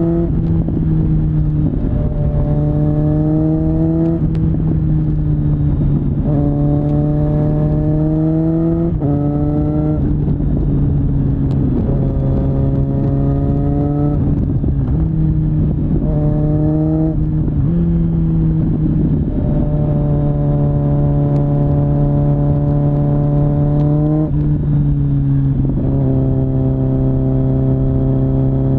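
Kawasaki Z900 inline-four through a LeoVince LV10 slip-on exhaust, with a deep, bassy note, heard from the rider's seat. The engine pulls up in pitch in a series of short runs, the note dropping back at each gear change. After about twenty seconds it holds fairly steady for a few seconds at a time.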